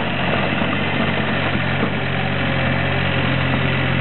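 John Deere 5575 skid steer loader's engine running steadily while the machine drives with its snow plow blade, a constant low hum.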